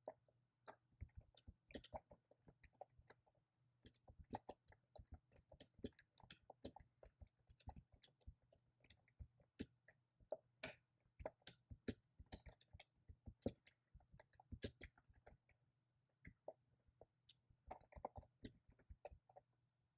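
Typing on a computer keyboard: irregular runs of quiet key clicks, several a second, with a short pause about three-quarters of the way through.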